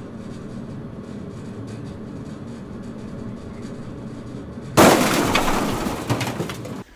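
A steady low background hum, then a sudden loud crash a little under five seconds in that fades out over about two seconds.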